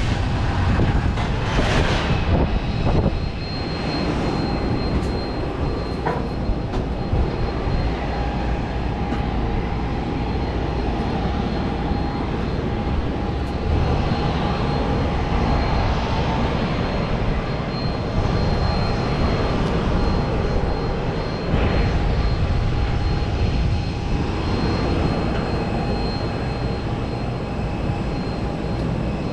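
Steady aircraft noise on an airport apron: a constant high whine and a lower hum over a heavy rumble.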